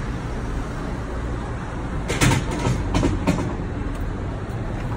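Steady low rumble of city street traffic, with a run of loud clanking rattles about two to three and a half seconds in, like a heavy vehicle passing.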